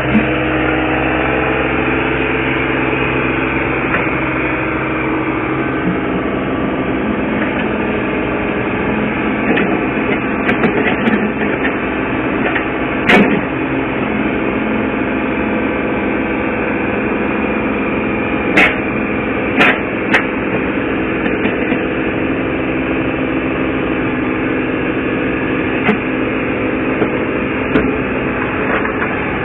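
Caterpillar 303CR mini excavator's engine running steadily under load as it climbs onto a flatbed trailer, with a few sharp knocks partway through, two of them close together.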